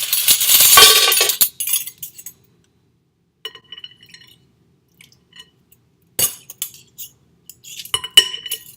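A loud scraping rustle for the first second and a half, then a few sharp clinks of a utensil against glass, each with a short ring; the last pair comes near the end.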